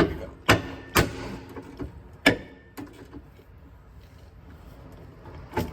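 Sharp metal clanks and knocks of hand tools on a rear suspension bolt under a Toyota Highlander, a wrench and socket being worked on a bolt that turns when it should be tight. About four strikes in the first two and a half seconds, then a quieter stretch and one more near the end.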